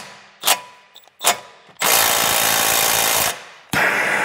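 Handheld power tool backing out the brake caliper bolts on a Mustang Cobra's front brake: two short blips, then a run of about a second and a half, a brief pause, and another run starting near the end.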